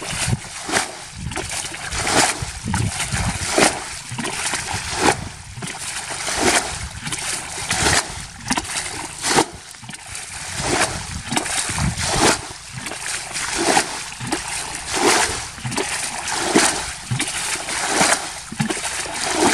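Water being bailed out of a shallow muddy pool with a plastic bucket: a scoop and splash roughly every second, one after another.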